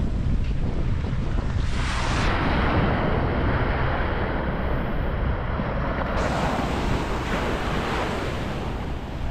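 Small sea waves breaking and washing up a sandy beach: one long hissing surge of wash builds about two seconds in and fades near the end, over a steady low rumble of wind on the microphone.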